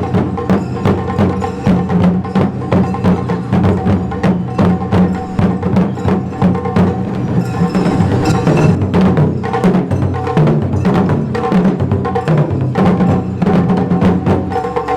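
Music with fast, dense clacking percussion over held pitched notes.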